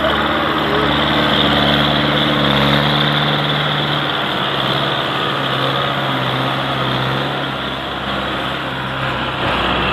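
Belarus tractor's diesel engine running steadily while pulling a trolley heavily loaded with sugarcane, heard close up.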